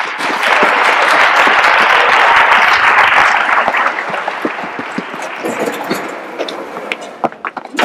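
A crowd applauding: dense clapping that is loudest over the first few seconds, then thins out and dies away near the end.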